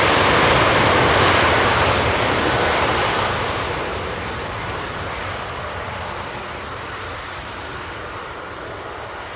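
Airbus A319-131's IAE V2500 turbofan jet engines heard as a loud, even jet noise that fades steadily from about two seconds in as the airliner moves away.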